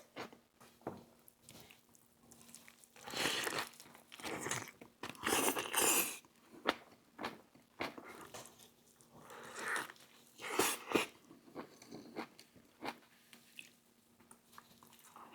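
Close-up eating sounds: crunching bites and chewing of an overstuffed veggie cheesesteak sandwich on a toasted roll, packed with lettuce, peppers and pickles, in irregular bursts.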